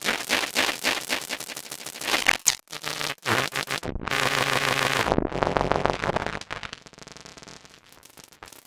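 Make Noise modular synthesizer (XPO oscillator through the QMMG) playing pulsar synthesis: dense, crackling trains of tiny clicks and pulses, randomly modulated. Around the middle a louder buzzing pitched tone emerges from the clicks, then the texture turns quieter and thinner near the end.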